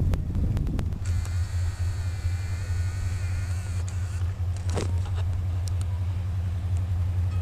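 Low steady rumble of a CSX diesel locomotive, with a faint high-pitched whine for about three seconds near the start.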